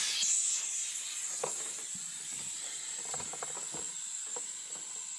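Compressed air hissing out of a turbo engine's pressurized intake piping during a boost leak test, with a steady high whistle over the hiss: the system slowly bleeding down. A few faint ticks sound around the middle.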